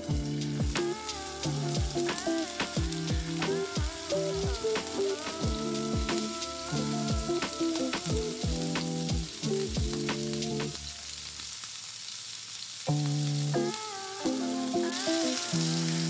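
Hanger steak searing in hot oil in a non-stick frying pan: a steady sizzle that grows louder near the end, heard over background music with a beat.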